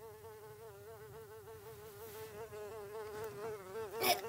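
Buzzing housefly sound effect: a steady drone that wavers up and down in pitch and slowly grows louder. It is cut off by a short knock about four seconds in, as a book swats at the fly.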